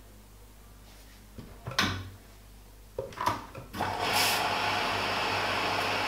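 Front-loading washing machine starting its cycle: a few clicks and knocks, then about four seconds in a steady rushing hiss of water starts filling the machine.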